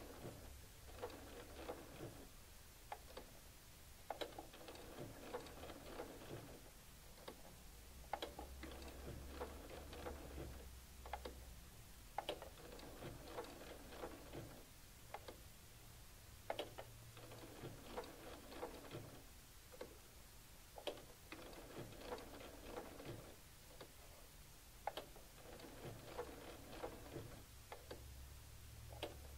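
Domestic sewing machine sewing a blanket stitch very slowly, in short runs of a stitch or two with pauses between, each stitch marked by a light click. Faint, with a low motor hum in some stretches.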